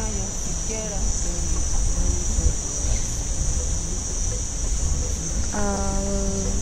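Steady high-pitched drone of cicadas in the trees, with a low wind rumble on the microphone. Near the end a person briefly makes a held vocal sound.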